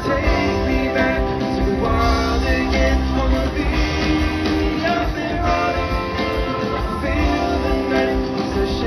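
Rock band playing live through a concert PA: electric guitars and drums over a strong low end, steady and loud throughout, heard from the audience.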